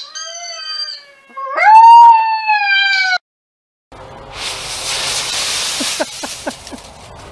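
Siberian husky puppy howling: two high, drawn-out howls, the second louder, rising in pitch and then sliding slowly down. After a short silence, a steady rustling noise with a few clicks follows.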